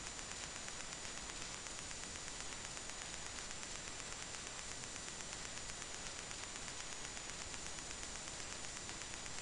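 Steady electronic hiss with a thin, high-pitched whine held at one pitch; no other sound.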